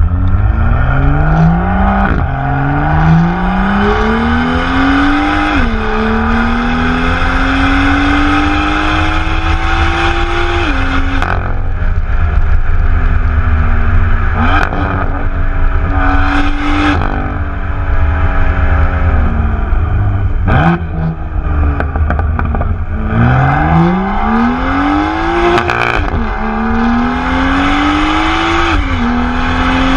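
Turbocharged performance car's exhaust heard right at the tailpipe under hard acceleration. The engine's pitch climbs and snaps back down at each upshift: three times in the first ten seconds, then the revs drop off. It pulls hard through the gears again near the end, with a few sharp cracks at gear changes. A steady low rumble of wind and road noise runs underneath.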